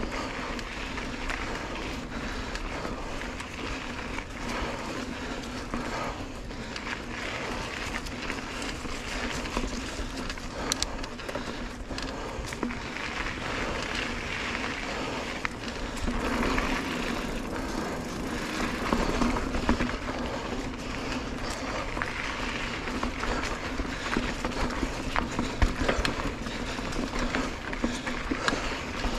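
Mountain bike rolling along a dirt singletrack: steady tyre noise on the dirt with frequent clicks and rattles from the bike over roots and bumps, getting a little louder about halfway through.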